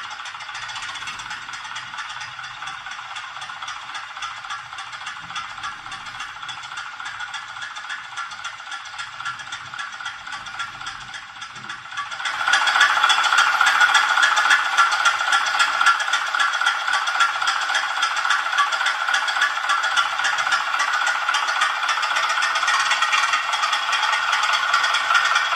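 Sound module of an RC crawler tractor playing a rattly engine sound through a small speaker, thin with no bass. About halfway through it gets suddenly louder and fuller, as if throttled up, and stays there.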